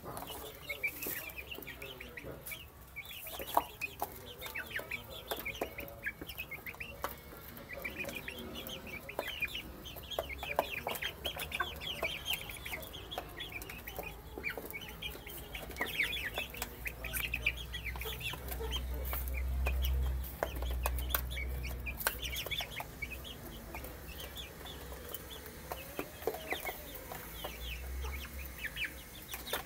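A group of young chicks peeping continuously, many short high calls overlapping, with scattered sharp clicks. A low rumble rises between about 17 and 22 seconds in.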